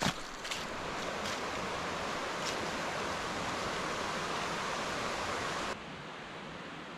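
Small mountain stream flowing steadily over rocks. About five and a half seconds in it drops abruptly to a softer, steady rush.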